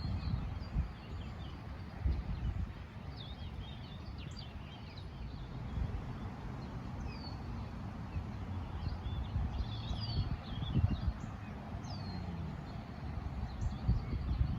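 Small songbirds chirping and twittering in short, falling notes, over a low rumble with scattered dull thuds.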